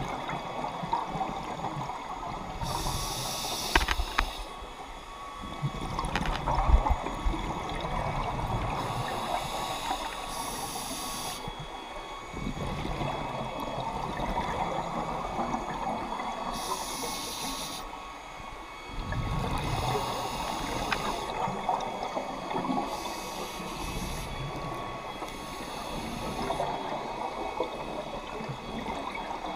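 Scuba diver's regulator breathing underwater: short hissing inhalations alternating with rumbling, bubbling exhalations, repeating every few seconds.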